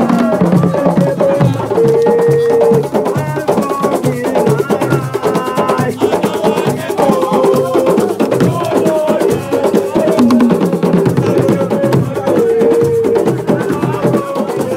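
Live percussion group playing a fast, steady drum rhythm, with voices singing a melody over it.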